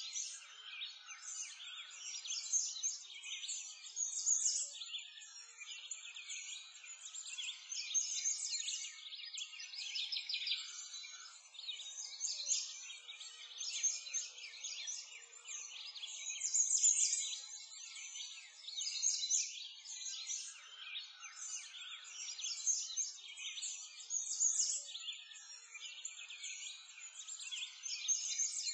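A steady chorus of many small birds chirping and twittering, the calls overlapping densely and swelling and fading every second or two.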